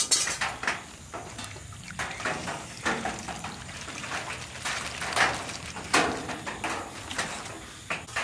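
Sauce poured from a glass jug over a bowl of beef ribs, splashing and trickling onto the meat in uneven bursts, the loudest near the start and about five and six seconds in.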